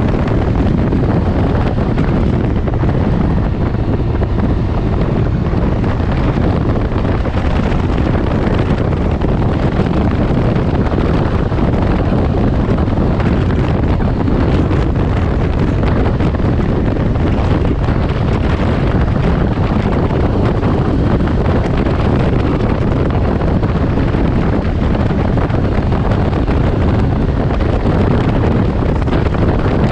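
Steady wind rush on the camera microphone while riding a Can-Am Ryker Rally three-wheeler at cruising speed, with the machine's engine and tyre noise underneath.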